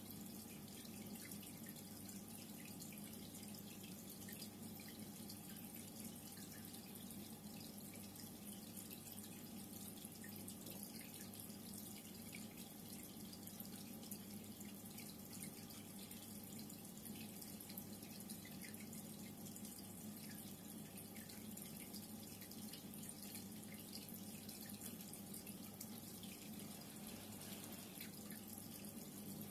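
Reef aquarium water circulating, with a steady trickle and many small drips and splashes over a steady low hum.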